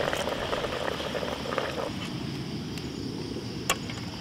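Steady low rushing noise with insects chirring continuously in a high band. There is a crackling texture in the first two seconds and a single sharp click near the end.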